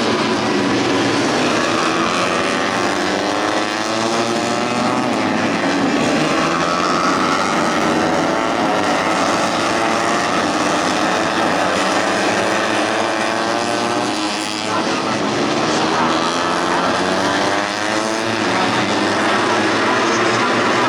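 A pack of tuned four-stroke 150cc underbone race motorcycles running hard, several engine notes overlapping and rising and falling as the riders rev, shift and back off.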